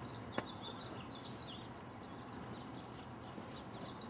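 Birds chirping steadily in the background, with one sharp click about half a second in.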